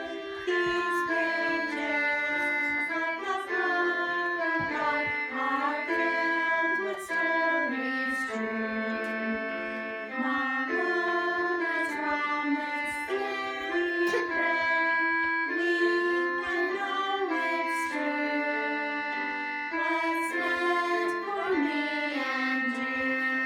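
Music from a children's song: a melody of held notes over accompaniment, with no words heard.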